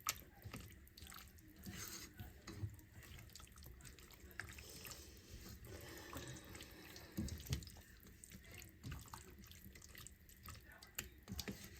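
A spoon stirring a thick, wet chili of ground meat, beans and tomatoes in a pot: soft wet sloshing with scattered knocks and scrapes of the spoon against the pot.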